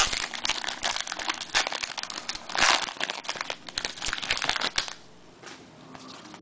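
Crinkling and rustling of baseball card packs and cards being handled, with a louder burst about two and a half seconds in; it quietens after about five seconds.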